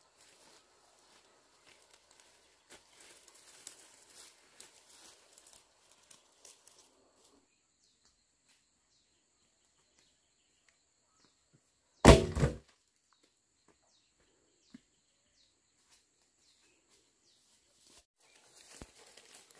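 Footsteps rustling through dry leaves and brush for several seconds, then one short, loud wooden thud about twelve seconds in, a cut log dropped on the ground. Footsteps in the leaves again near the end.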